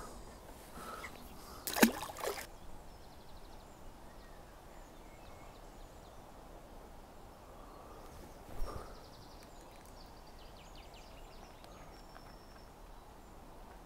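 Quiet outdoor lakeside ambience: a steady low hiss, with one sharp knock about two seconds in, a dull low thump past the middle, and faint high chirps.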